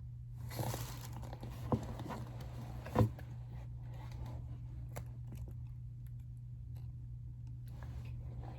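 Toys and packaging handled on a table: a crinkling rustle, then two sharp knocks, the second louder, with a few lighter ticks, over a steady low hum.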